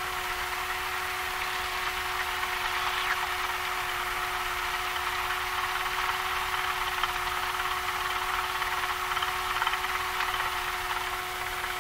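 Cessna 172's piston engine and propeller idling steadily, heard inside the cabin as an even drone with a constant hum.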